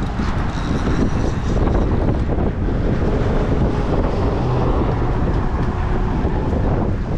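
Wind buffeting the microphone in a steady low rumble, with the drone of traffic passing in the background.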